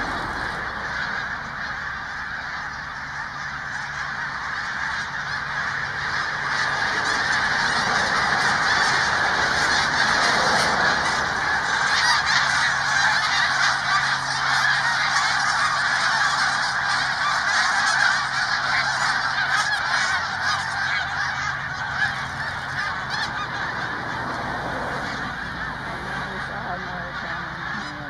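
A massive flock of thousands of snow geese calling all at once in flight, a dense, continuous din of overlapping calls. It swells to its loudest in the middle and eases toward the end.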